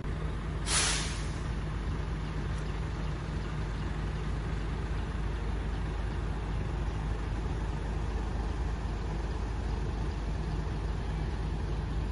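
Heavy diesel trucks running with a steady low rumble; about a second in, a short sharp hiss of air brakes letting off air.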